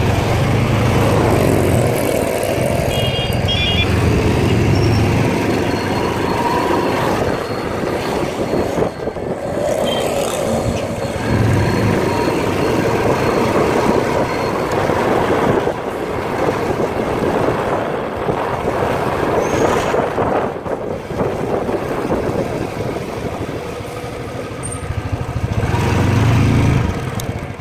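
Motorcycle engine running while the bike is ridden, its low note swelling and easing several times with the throttle.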